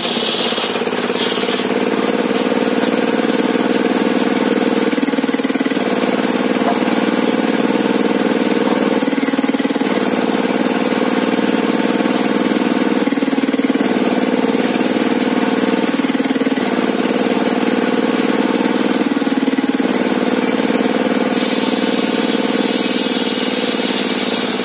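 Sawmill engine running steadily, its pitch shifting down and back up every three to four seconds.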